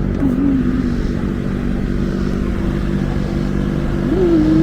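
Large electric work fan running steadily, with a loud, even motor hum.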